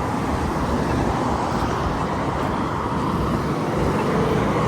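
Steady road traffic noise from cars passing on a busy roadway.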